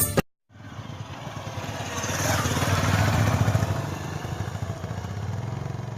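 An engine running with fast, even firing pulses, growing louder to a peak about halfway through and then easing off.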